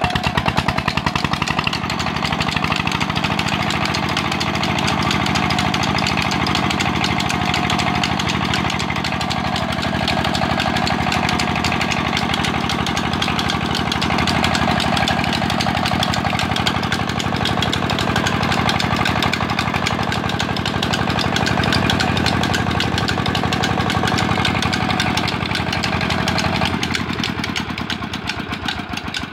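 Single-cylinder diesel engine running steadily under load, driving a tubewell water pump by a flat belt, with its rapid even firing beat. Near the end it slows down.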